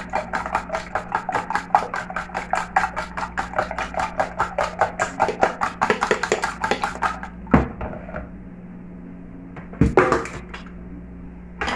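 Fork beating raw eggs in a plastic tub: quick, even strokes of metal tines against the plastic, about four to five a second, that stop about seven seconds in. A few single knocks follow as things are set down and picked up, over a low steady hum.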